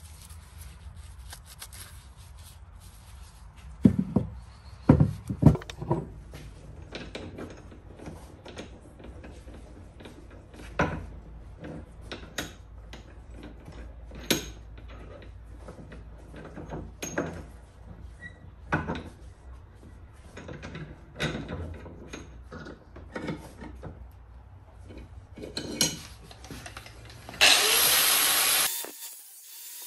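Irregular knocks, clinks and scrapes of hobby casting tools and equipment over a steady low rumble, loudest about four to six seconds in. Near the end a loud hiss lasts about a second, and then the rumble stops.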